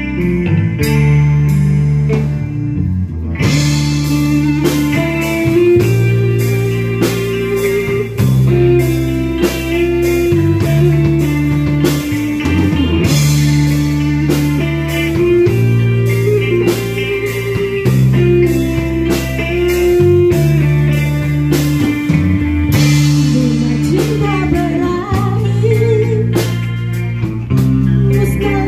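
Live band playing: an electric guitar melody over bass guitar and a drum kit, the drums coming in about three seconds in.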